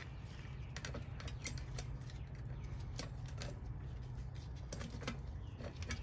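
Faint, irregular metallic clicks and light rattles of a motorcycle roller drive chain being handled and lifted off the rear sprocket by hand, over a low steady hum.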